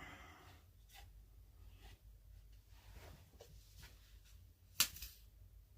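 Quiet handling of wood and tools on a workbench: a brief rustle at the start, a few faint taps and clicks, and one sharp knock nearly five seconds in.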